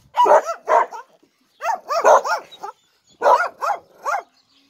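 A dog barking repeatedly: about eight short, sharp barks in quick runs of two or three.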